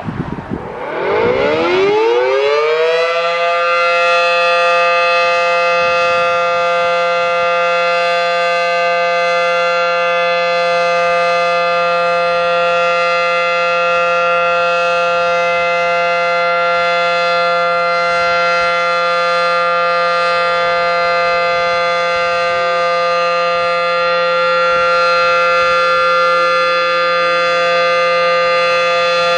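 Federal Signal Model 5 outdoor warning siren winding up over the first three seconds, then holding a loud, steady alert tone.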